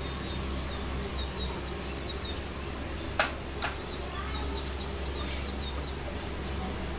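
Small birds chirping: runs of short, quick chirps. About three seconds in come two sharp metal clinks as the steel bowl knocks on the aluminium pot, over a steady low hum.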